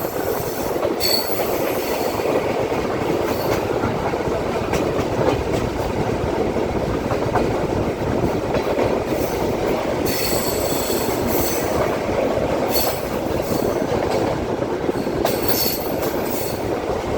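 Benapole Express intercity diesel train running at speed: a steady rumble of the wheels on the track, with high-pitched wheel squeal coming and going a few times.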